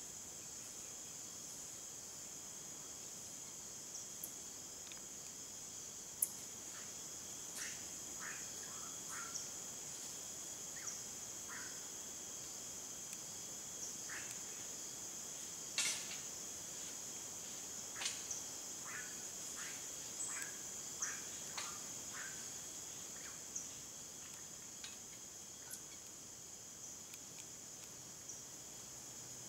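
Steady high-pitched insect chorus, with scattered short, sharp chirps and clicks mostly in the middle stretch.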